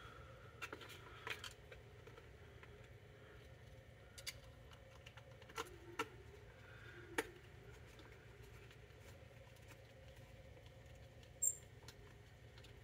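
Faint scattered clicks and taps as the blue plastic case of a Portacount 8020A respirator fit tester is handled and worked on with a small screwdriver, over a low steady hum. A brief high squeak about eleven and a half seconds in is the loudest sound.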